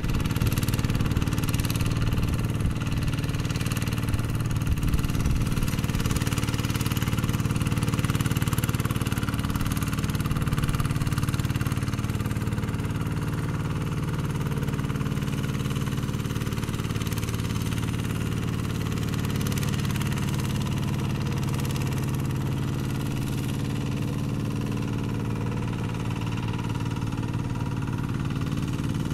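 Kubota RD110Di-2T 11 HP single-cylinder diesel engine on a Quick Zena two-wheel tractor running steadily while it drives a rotary tiller through paddy mud.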